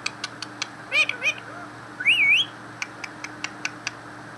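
Pet parrot giving two short high chirps, then one loud wavy whistle that rises, dips and rises again, with scattered sharp clicks before and after.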